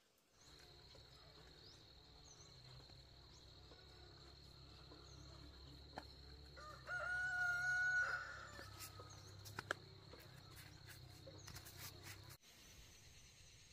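A rooster crows once, about seven seconds in, a loud pitched call lasting a little over a second, over a steady background with a constant high whine and a low hum.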